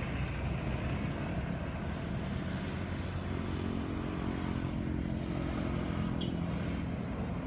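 A motor vehicle's engine running steadily: an even low drone.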